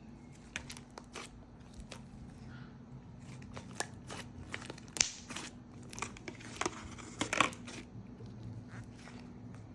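Hands kneading, stretching and poking a thick slime with soft clay mixed in, making irregular sticky clicks and small pops, a few louder snaps about five and seven seconds in.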